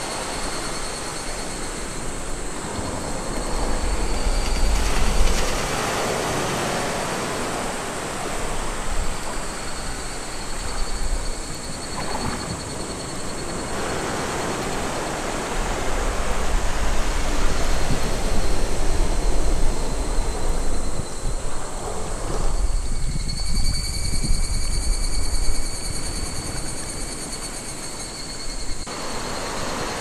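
Small sea waves breaking and washing up a sandy beach, in a hiss that swells and falls every few seconds over a low rumble.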